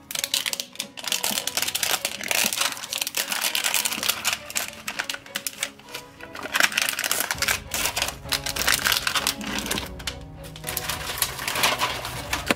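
Stiff zippers on a LOL Surprise #Hairgoals capsule being worked open by hand, giving dense, irregular rapid clicking as the teeth catch and part, over background music.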